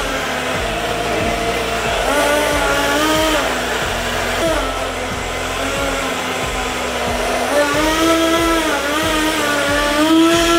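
Personal blender running continuously, whirring as it blends fresh fruit into juice, with a light background music melody over it.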